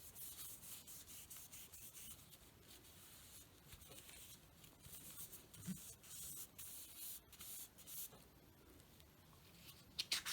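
Hands pressing and rubbing two plastic transparency sheets together with ink between them: a faint, uneven rustling, with a few sharper crackles of the plastic near the end.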